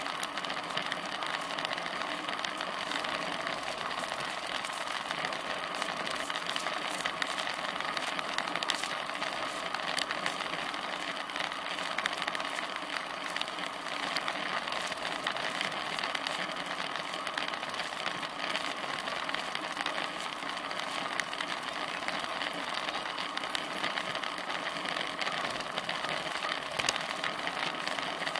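Steady road and wind noise from a road bike rolling along on asphalt, heard through a bike-mounted camera, with many small ticks and rattles throughout.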